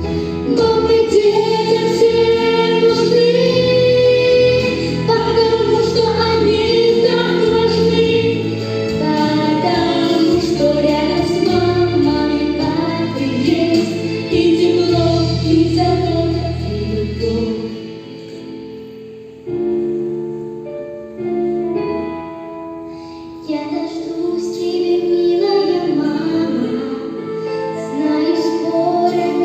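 A song: voices singing over an instrumental backing track with piano and bass. The bass drops out and the music thins for a few seconds past the middle, then builds again.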